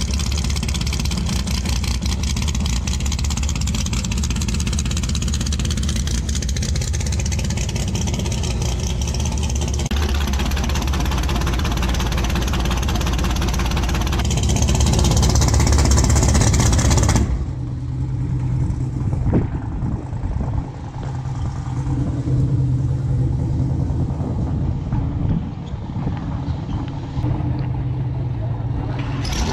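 A Ford Mustang drag car's engine is held at high, steady revs, getting louder for a few seconds past the middle. It then cuts back suddenly to a lower, rumbling idle.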